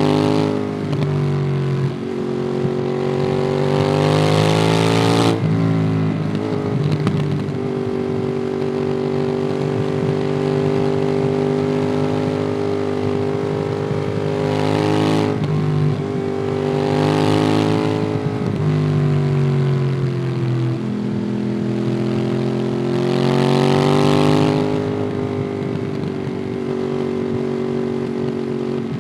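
Ducati Monster 821's 821 cc L-twin engine through a QD Twin Gunshot aftermarket exhaust, heard on board while riding, with wind rush. The revs climb under acceleration four times and drop back as the throttle eases or it shifts gear.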